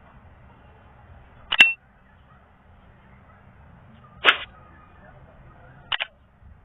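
Mouse-click sound effects from an animated like-and-subscribe graphic: a sharp click about a second and a half in, a slightly longer burst around four seconds as the thumbs-up icon appears, and a quick double click near the end as a cursor clicks the thumbs-up. A faint low hum lies underneath.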